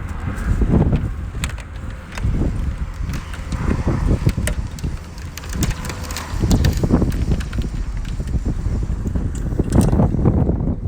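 Wind buffeting the microphone in uneven gusts of rumble, with scattered light clicks and knocks from parts being handled.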